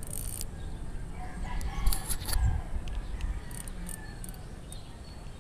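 A rooster crowing once, a drawn-out call that rises and falls, starting about a second and a half in. A few short sharp clicks sound as well, and there is a low rumble throughout.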